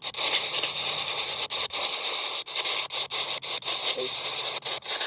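Spirit box radio scanner sweeping through stations: a hiss of static chopped by many short dropouts as it jumps from channel to channel, with a brief voice-like fragment about four seconds in.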